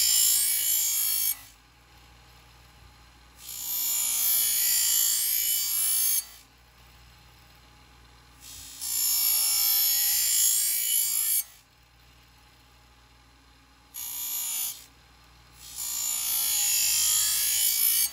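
A curved knife blade, held at a set angle in a homemade jig, ground against the spinning deburring wheel of a scissor-sharpening machine: five passes of a high, gritty grinding sound lasting from about one to three seconds each, with only a faint motor hum in the gaps. The passes are sharpening the edge and raising a burr.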